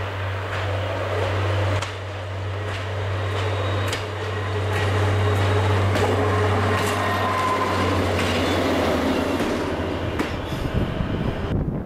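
Czech class 810 diesel railbus approaching and passing close by: a steady low diesel engine drone with irregular clicks of the wheels over the rail joints, loudest as it goes past about halfway through. The engine fades out about ten seconds in, leaving wind on the microphone.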